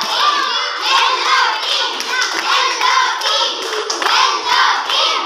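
A group of children shouting and cheering together in a rhythmic chant, with hand claps mixed in.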